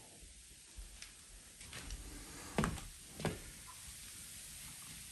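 Faint steady fizzing hiss of fresh carpet and upholstery cleaner foam on a fabric sofa, with a couple of soft knocks about two and a half and three and a quarter seconds in.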